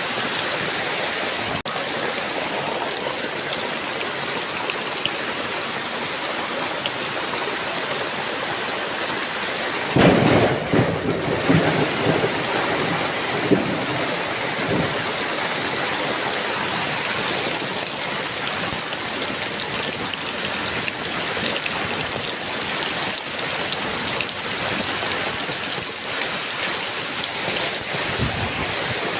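Heavy rain falling steadily. A thunderclap breaks about ten seconds in and rumbles on for a few seconds before fading back under the rain.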